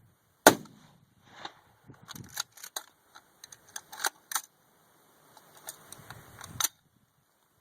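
A loud sharp crack about half a second in, then a run of smaller metallic clicks and clacks from an AR-15 rifle's action being worked, with one more sharp clack near the end.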